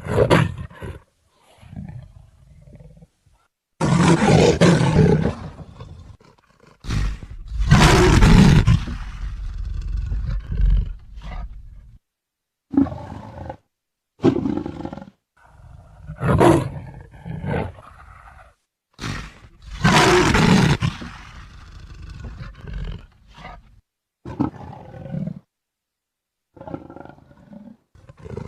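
Leopard roaring: a string of about a dozen separate calls, some short and some two or three seconds long, with dead-silent gaps between them; the loudest come about four, eight and twenty seconds in.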